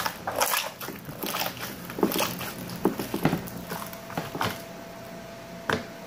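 Slime being squeezed and kneaded by hand, giving irregular wet squelches and crackling pops, busiest in the first three seconds and sparser after, with one sharper click near the end.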